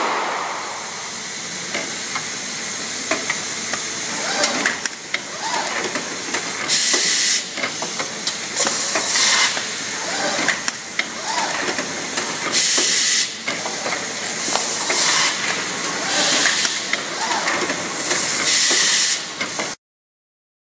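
Pneumatically driven automatic bag-forming machine running through its cycle: a steady mechanical clatter with clicks, broken by several short, loud hisses of compressed air as its cylinders fire and vent. The sound cuts off suddenly near the end.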